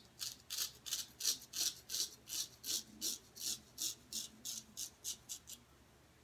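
Straight razor scraping through lathered beard stubble on the cheek in a quick run of short strokes, about three to four a second, stopping about five and a half seconds in.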